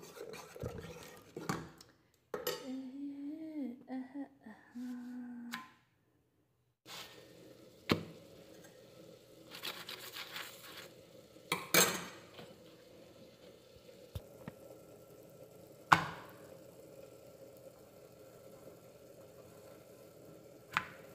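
A steel spoon scraping and clinking in an aluminium pressure cooker as tomato purée is stirred, followed by a few seconds of wordless voice. After a break, a steady low hum runs under a handful of single sharp clinks of a spoon against dishes.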